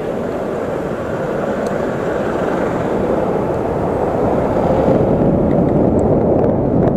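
Wind rushing and buffeting over an action camera's microphone on a moving electric scooter, a low steady rumble that grows louder as the scooter picks up speed.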